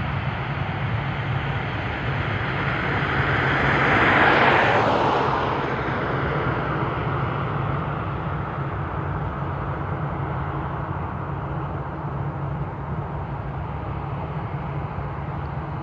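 Jet airliner passing by, its engine noise swelling to a peak about four seconds in and then fading away, over a steady low rumble.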